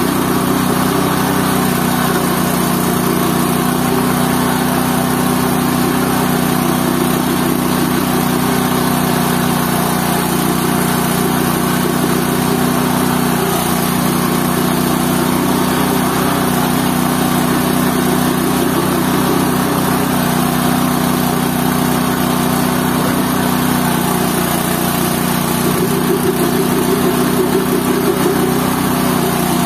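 GT-14 organic-waste pulper machine running steadily, a constant loud engine-like hum as it grinds vegetable waste.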